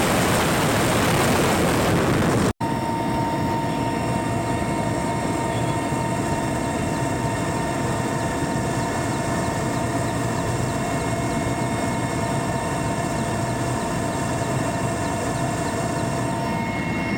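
Mil Mi-8 twin-turbine helicopter heard from inside the cabin in flight: a loud, steady roar of rotors and engines. A brief gap about two and a half seconds in; after it the noise is steadier, with a constant whine on top.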